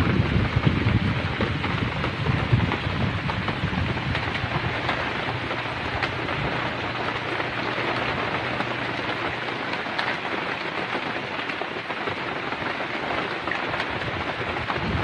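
Heavy rain pouring steadily as an even hiss, with a low rumble in the first few seconds that fades out.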